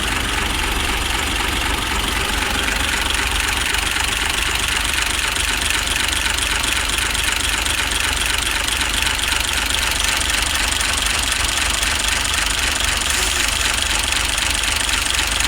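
Hino Profia's K13C straight-six diesel engine idling steadily, just started after a no-start fault.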